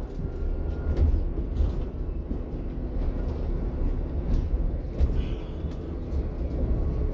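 Volvo BZL battery-electric double-decker bus driving along, heard from inside the passenger cabin: a steady low rumble of the moving bus with scattered clicks and rattles from the interior fittings.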